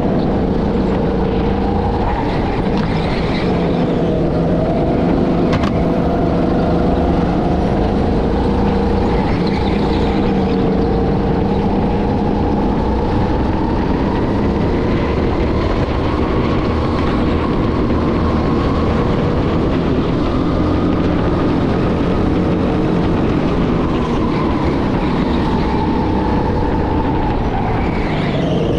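Go-kart being driven at racing pace, a steady loud motor note whose pitch falls and rises slowly as the kart slows and speeds up around the track.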